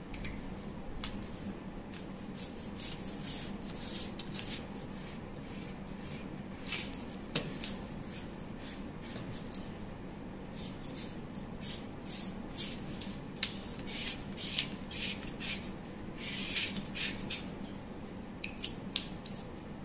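Felt-tip marker scratching on brown pattern paper, with paper rustling as the pattern is handled: short scratchy strokes in scattered clusters, over a steady low hum.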